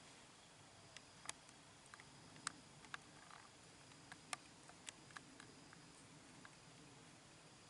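Faint scattered clicks and crackles, a dozen or so, a few sharper than the rest, over low background hiss: a young monkey scrambling over bark and dry debris at the foot of a tree.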